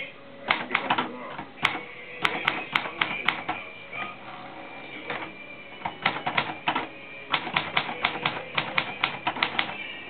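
Manual portable typewriter being typed on: quick runs of sharp keystroke clacks, a sparser pause of a couple of seconds in the middle, then a dense, fast run of keystrokes from about six seconds in.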